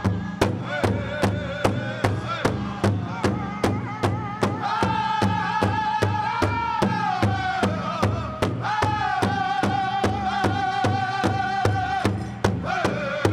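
Pow wow drum group: several singers striking one large shared drum in a steady beat about three strokes a second while singing long, high-pitched sung lines.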